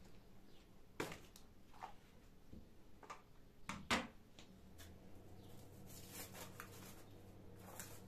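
Small kitchen handling sounds as a silicone pastry mat is spread on a granite counter and a rolling pin is handled on it, with sharp knocks about one and four seconds in, the second the loudest. A low steady hum comes in about halfway.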